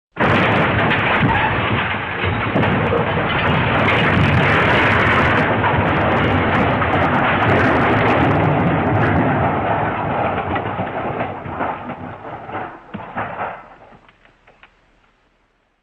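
The MGM 'Elephant Smash' crash sound effect: a loud, sudden smash that goes straight into about ten seconds of continuous crashing noise, then breaks up into scattered crashes and fades out over the last few seconds.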